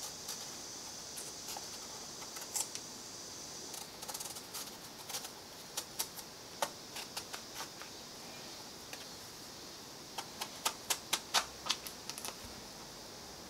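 Paring knife peeling a firm, crisp hard peach: a run of short, sharp cutting clicks as the blade slices through the skin and flesh, coming in two quick flurries, one around the middle and one near the end.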